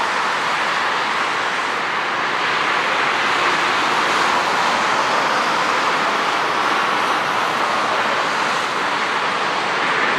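Airbus A300-600 freighter's twin jet engines running as the aircraft rolls down the runway after landing: a steady, even jet rush.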